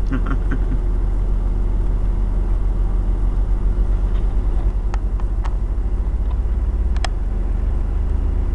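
Heavy wide-load truck approaching, its diesel engine making a low, steady rumble, with a few sharp clicks about halfway through.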